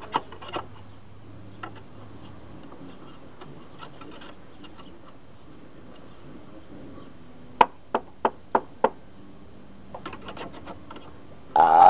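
Hand tool scraping caked dead grass off the underside of a lawnmower deck: light scratching, then five sharp knocks about three a second just past halfway, and a short louder burst of noise just before the end.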